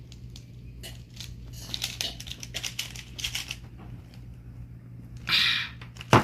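Rubik's cube being turned fast during a speed solve: runs of quick plastic clicking and clacking. Near the end comes a short rushing sound and then a single sharp knock, the loudest sound here.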